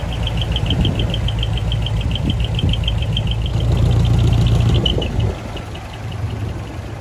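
Large diesel truck engines running at low speed as trucks roll past, a steady low rumble that drops away about five seconds in. Over it for the first half is a rapid high-pitched pulsing, about seven pulses a second.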